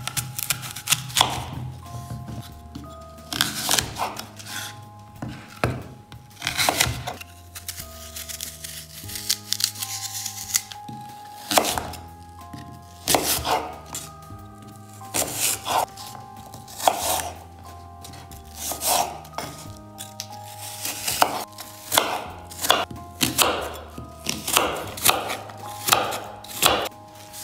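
Kitchen knife cutting through an apple and striking a wooden cutting board: a series of sharp chops, irregular at first and then quicker, about two a second, near the end as the apple is diced. Background music with held notes plays under the chopping.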